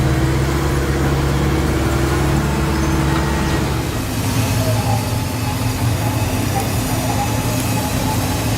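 Heavy diesel engine of a large mining wheel loader running steadily, a low pitched hum whose tone shifts slightly about halfway through.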